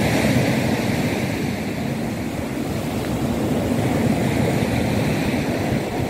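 Sea surf: small waves breaking and washing up a pebbly beach, a steady rushing wash.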